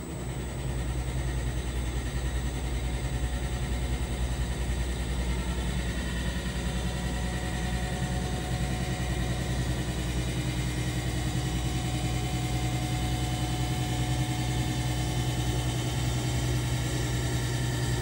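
DCM3 diamond-cut wheel lathe taking a coarse 0.1 mm cut across the face of an alloy wheel: a steady spindle hum under an even, consistent cutting sound. The evenness shows that the tool is in full contact across the whole face of the wheel.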